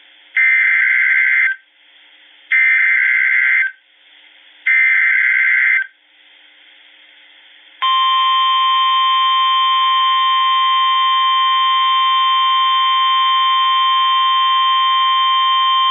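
Emergency alert signal from a NOAA Weather Radio broadcast: three identical screeching digital SAME header bursts, each about a second long, then a loud steady single-pitch alert tone of about 1050 Hz held for about nine seconds before it cuts off abruptly. The sequence marks the start of a new weather warning.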